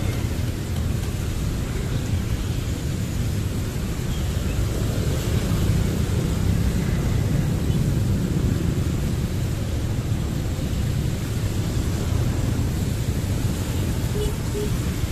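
Steady low rumble of wind buffeting the microphone and road noise from a moving motorbike.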